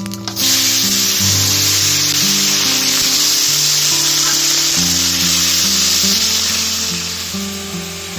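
Food sizzling loudly in hot oil, starting suddenly about half a second in as it goes into the pan, then a steady sizzle that eases slightly near the end.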